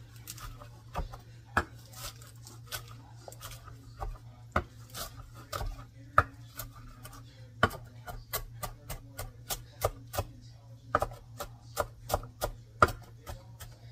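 Kitchen knife chopping sorrel leaves on a wooden cutting board: sharp knocks of the blade on the board. They are scattered at first, then come in a quicker steady run of about three a second in the second half.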